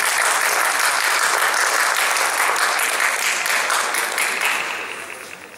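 Spectators applauding, a dense burst of clapping that starts suddenly and dies away near the end.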